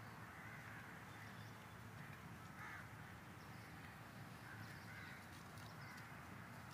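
Quiet outdoor background with a steady low hum and several faint, short animal calls, spaced a second or two apart.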